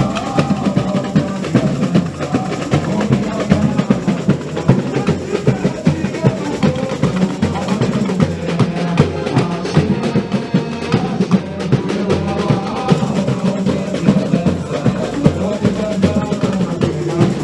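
Samba school bateria (drum section) playing a driving samba rhythm: deep bass drums under rattling snare drums and other hand percussion, steady throughout.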